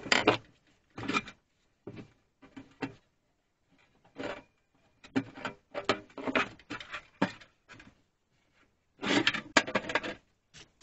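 Rusty sheet-steel toolbox parts being handled on a workbench: irregular bursts of clattering, knocking and scraping metal, with short pauses between them.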